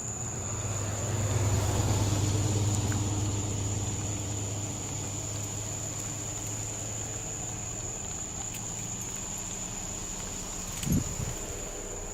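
A vehicle's low rumble swells and fades over the first few seconds, like traffic going past. A steady thin high whine runs under it, and two short knocks come near the end.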